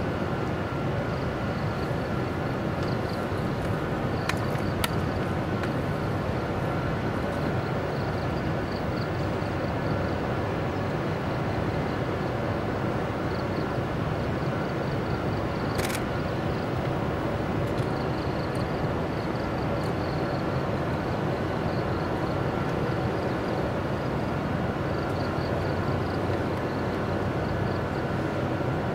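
Steady hum and rumble of a 45-tonne electric locomotive working in a freight yard. Faint high chirping comes and goes over it, with a few sharp clicks, the clearest about sixteen seconds in.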